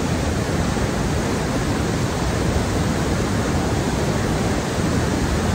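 Fast mountain river swollen by monsoon rain, white water rushing over boulders in a steady, loud, even rush.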